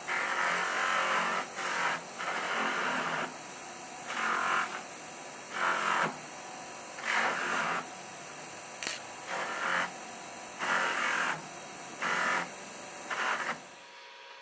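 Bench buffer motor running steadily with a soft buffing wheel, with about ten louder rushing bursts of half a second to a second each as small metal bag fittings are pressed against the spinning wheel to polish them. The sound cuts off near the end.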